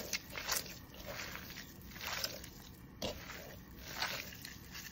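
A hand kneading and squeezing raw minced beef mixed with grated onion, potato and herbs in a bowl, giving a run of soft, irregular wet squishes.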